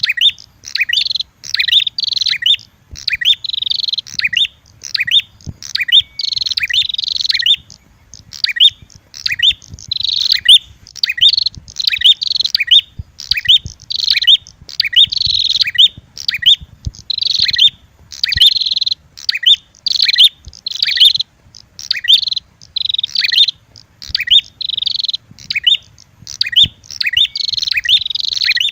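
Prenjak (prinia) lure-call recording: a red-headed prenjak's calls combined with a female prenjak's agitated fighting calls, used to draw birds in. High, rapid chattering phrases are repeated in short bursts with brief gaps between them.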